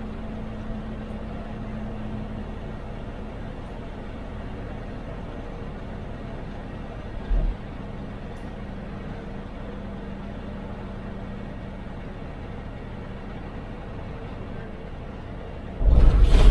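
A TNSTC bus's diesel engine and road noise heard from the driver's cab while cruising at highway speed, with a steady low engine note. A short low thump comes about halfway through, and a louder brief burst of noise near the end.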